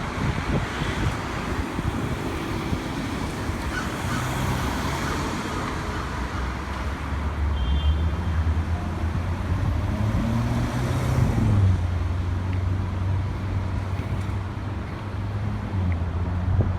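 City street traffic, with a vehicle engine running low and steady from about four seconds in, its pitch wavering briefly near the middle.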